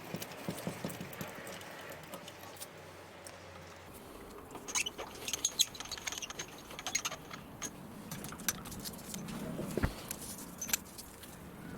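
Scattered light metallic clicks, ticks and rattles of hands adjusting a home-built Gingery milling machine and its tooling, busiest a few seconds in, with a single sharper knock near the end.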